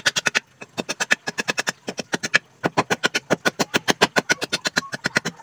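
A metal file rasping across teak wood in quick, short back-and-forth strokes, about eight scrapes a second, with brief pauses about half a second in and again around two seconds in.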